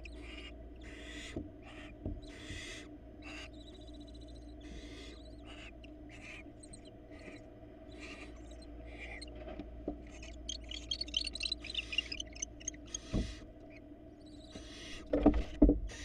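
Barn owls in a nest box giving a string of short, rasping hisses, one after another. About ten seconds in comes a quick run of sharper, chattering calls. Near the end there are a few heavy thumps of the birds moving against the box.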